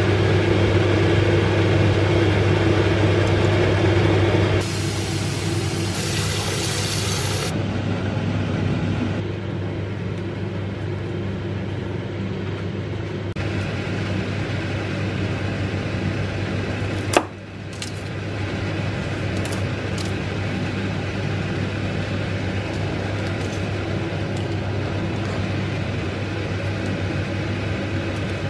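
Steady low hum of a running kitchen appliance, with water boiling in a saucepan over the first few seconds and a single sharp click about 17 seconds in.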